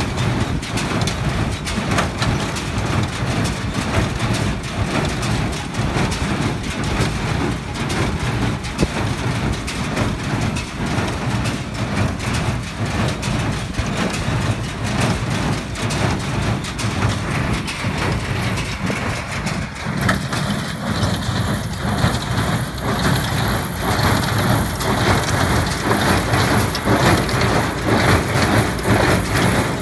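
New Holland small square baler running, a steady dense mechanical clatter of the baler over the low rumble of the engine driving it, as a hay bale is pushed out along the bale chute.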